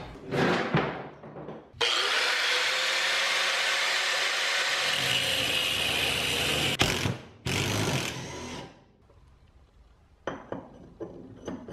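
Electric angle grinder spinning up and cutting into the head of a rusted steel carriage bolt, a steady grinding hiss over a held motor whine for about five seconds, then a brief second cut of about a second. Cutting a notch in the bolt head lets a screwdriver hold the bolt while the nut is undone. Light knocks of metal parts being handled come at the start and near the end.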